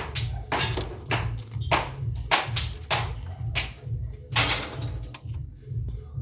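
Repeated sharp taps, a little under two a second, of a piston being tapped down into its engine cylinder during an engine rebuild.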